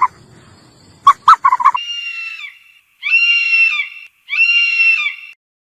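An animal calling: a few short, sharp yelps about a second in, then two long, high, even-pitched calls of about a second each.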